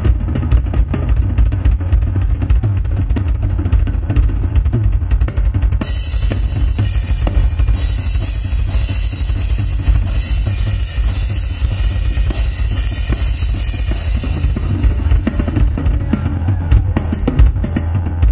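Live rock drum kit solo: a rapid, continuous stream of bass drum strokes under snare and tom hits. Sustained cymbal crashing joins from about six seconds in and eases off around fifteen seconds.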